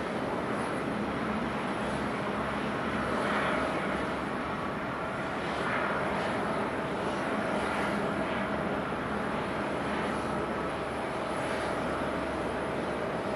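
Airliner jet engines running with a steady rush and a faint constant hum; these are the Rolls-Royce Trent XWB turbofans of a Japan Airlines Airbus A350-941.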